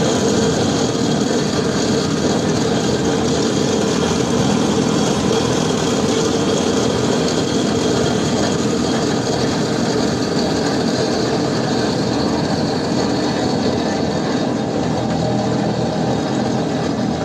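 Heavy road-work machinery running steadily and loudly without a break.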